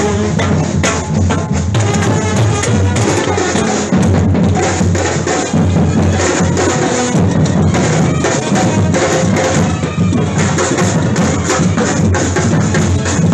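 Street drum band playing snare drums and large bass drums together in a busy, unbroken rhythm of quick strikes.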